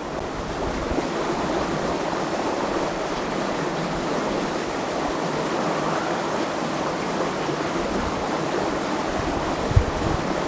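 Steady rushing of flowing water. A single low thump sounds near the end.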